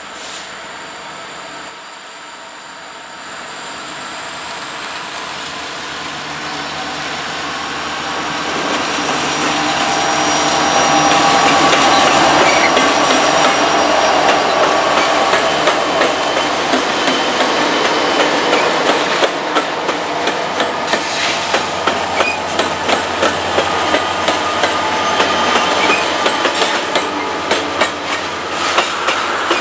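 Freight train with a seven-unit lashup of EMD and GE diesel-electric locomotives approaching and growing steadily louder. The locomotives pass close by about a third of the way in. Loaded tank cars then roll past with a regular clickety-clack of wheels over the rail joints.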